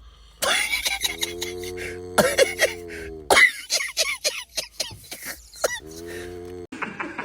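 A person snoring in an odd, comical way: long drawn-out snores held on one steady pitch, alternating with high squeaky whistling chirps.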